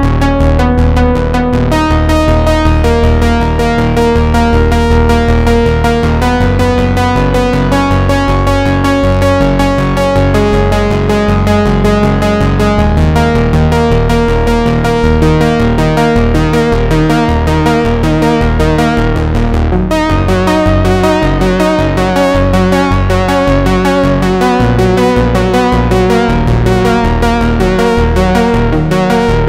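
Nord Lead A1 virtual-analog synthesizer playing a patch demo: held chords over a steady bass line, the chords changing every couple of seconds. About two-thirds of the way in, the sound shifts to a denser, faster repeating pattern.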